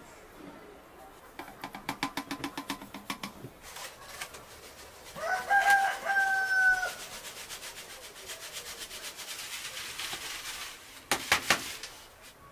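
Flour being sifted through a wooden-rimmed sieve over a metal tray. There is a quick run of taps from shaking the sieve, then a soft steady hiss of falling flour, and a short burst of knocks near the end. A rooster crows once in the middle, the loudest sound.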